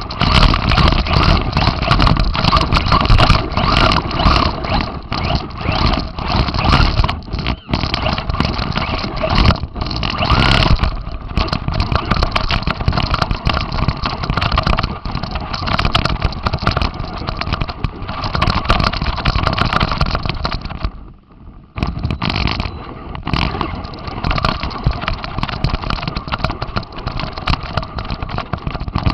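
Radio-controlled car's motor and drivetrain running under load, picked up by a camera riding on the car, with many short clicks and knocks. About three-quarters of the way through it cuts out for about a second, then picks up again.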